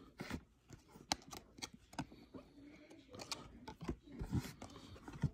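Baseball trading cards handled by hand: faint, irregular clicks and rustles of card stock sliding and tapping against other cards.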